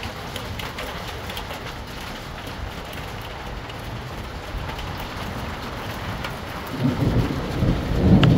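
Steady heavy rain falling, with a low rumble of thunder building near the end.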